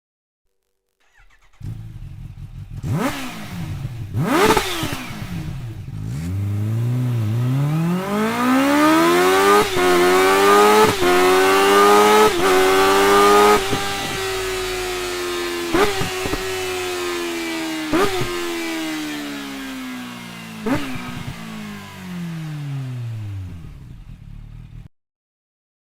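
Kawasaki Ninja H2's supercharged inline-four motorcycle engine revved through its exhaust. Two quick throttle blips, then the engine note climbs for several seconds, holds high, and sinks slowly away. Sharp cracks come about every second or two while it is high, and the sound cuts off suddenly near the end.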